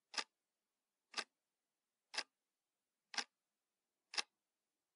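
Faint, sharp ticks evenly spaced one a second, five in all, like a clock ticking.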